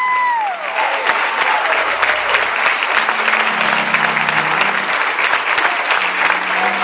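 Church congregation applauding steadily, with a few low held tones underneath.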